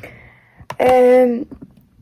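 A woman's voice holding one short, level hum or vowel sound about a second in, with a few faint clicks around it.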